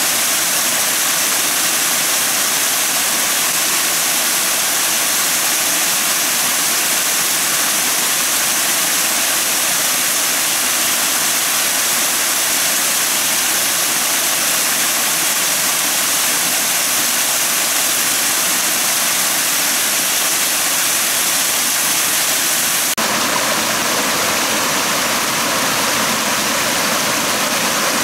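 Water of a small forest waterfall and stream cascading over rock: a loud, steady rushing. About twenty-three seconds in the sound changes abruptly to a slightly different rush, with more mid-range and less hiss.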